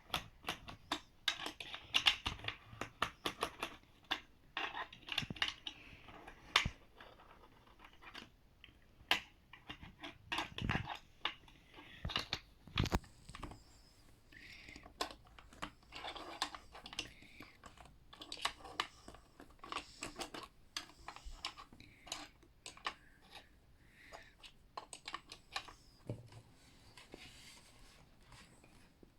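Irregular clicks, taps and scrapes of hands working the small plastic parts of a toy screen-printing kit, with a couple of louder knocks partway through.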